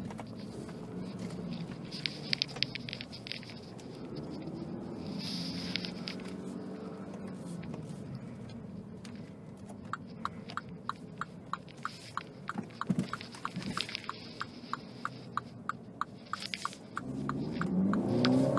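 Inside the cabin of a MINI Cooper S moving at low speed, its 2.0-litre turbocharged four-cylinder engine and the road give a steady low hum. About halfway through, the turn-signal indicator ticks steadily at about three clicks a second. Near the end, music comes in over it.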